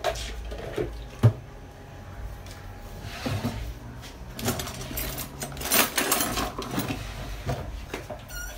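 Handling noises on a kitchen counter: one sharp knock about a second in, then a few seconds of rustling and light clatter.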